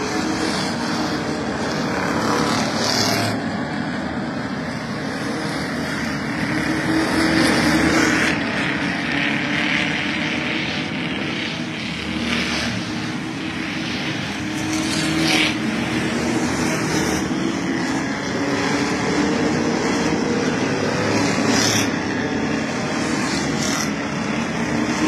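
A pack of stock cars racing on a paved oval short track, engines running loud and continuous, swelling and fading as cars pass the grandstand.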